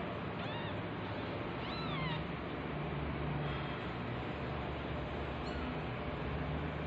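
Newborn kitten mewing while held belly-up: a short, thin, high-pitched mew about half a second in, then a longer one that rises and falls about two seconds in.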